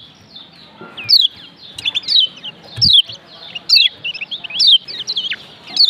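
Kecial kuning Lombok (a yellow white-eye) calling: sharp, high, falling chirps about once a second, with quicker twittering notes in between.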